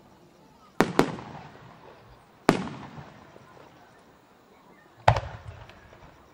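Aerial firework shells bursting in the sky. Two bangs come in quick succession about a second in, another follows about a second and a half later, and a last one comes near the five-second mark, each trailing off in a fading echo.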